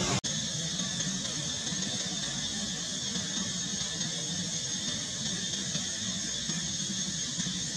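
Steady background noise with faint, steady high-pitched tones and no distinct events, starting after a brief dropout near the start.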